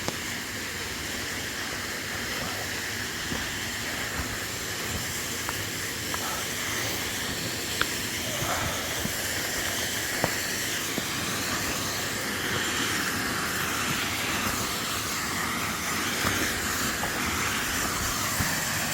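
Waterfall rushing: a steady hiss of falling water that grows a little louder toward the end as it is approached, with a few faint clicks.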